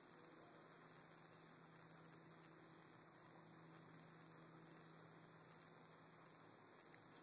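Near silence: faint hiss with a low steady hum that stops near the end.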